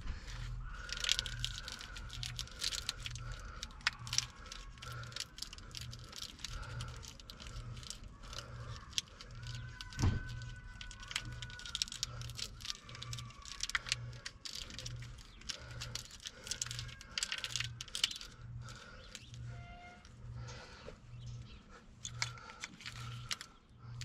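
Hand-fitting a wiring harness: irregular small clicks and rattles of plastic connectors, clips and grommets being pushed and worked into place. A faint, even low pulse repeats steadily underneath.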